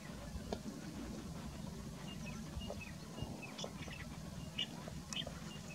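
Common babbler calling: a series of short, high whistled notes starting about two seconds in and running to the end, over a steady low background rumble.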